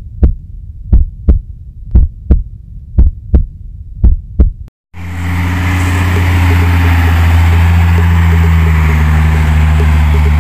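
A heartbeat sound effect: paired thumps about once a second for about five seconds. It then cuts to a Hino dump truck's diesel engine running loud and steady with a low drone.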